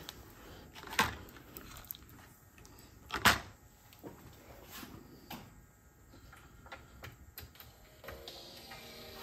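A cassette being loaded and started in a Nakamichi 680ZX deck: a few clunks and clicks from the cassette door and transport controls, the loudest about three seconds in. Music from the tape starts playing near the end.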